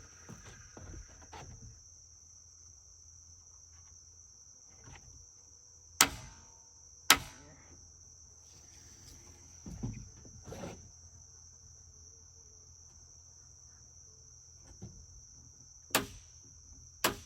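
Steady high chirring of crickets or other insects, with four sharp wooden knocks in two pairs about a second apart, the pairs some ten seconds apart, and a few softer thuds between them, from work on the lumber.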